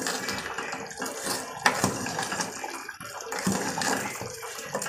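A spoon stirring thick chicken curry gravy in an aluminium pot: wet sloshing and squelching of the gravy, with a few knocks and scrapes of the spoon against the metal.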